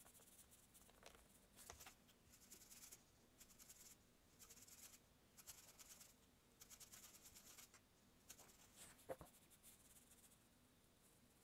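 Faint, scratchy swishes of a paintbrush's bristles stroking acrylic paint over a painting board and working it on a palette, in short irregular strokes, with a small click about nine seconds in.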